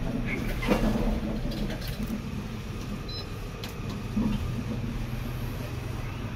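Kone MonoSpace machine-room-less traction lift travelling down, heard from inside the car as a steady low rumble and hum, with a sharp click near the start and a few faint ticks.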